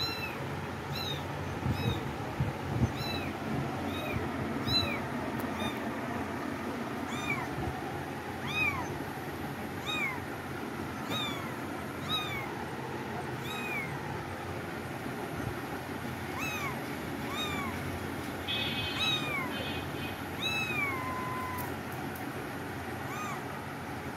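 A kitten mewing over and over: short high-pitched mews that rise and fall, about one a second, with one longer mew near the end that trails off.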